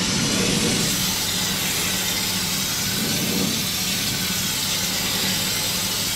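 Compressed-air Schutz (stone chip) gun spraying tar-based underbody sealant: a steady hiss of air, with a steady low hum underneath.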